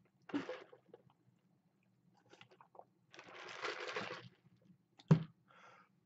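Sips through a plastic straw from a large paper fountain-drink cup, with the cup being handled: a brief sip just after the start, about a second of hissy noise a little after three seconds, and a single sharp knock a little after five seconds.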